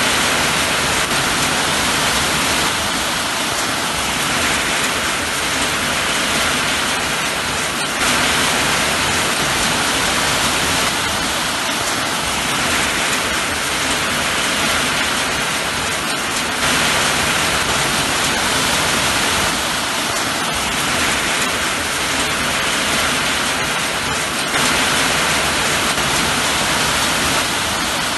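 Steady, heavy rain falling without a break, with a small sudden lift in level about every eight seconds.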